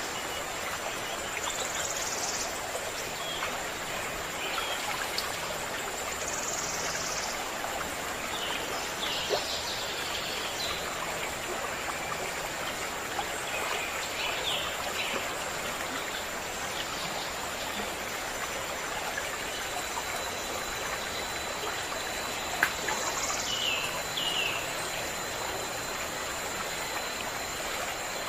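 Stream of water running steadily, with a few short bird calls now and then above it.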